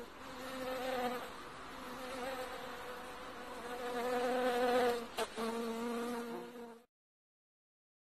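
Bees buzzing in flight around flowers, a pitched hum that swells and fades as they come and go. There is a single sharp click about five seconds in, and the sound cuts off abruptly about seven seconds in.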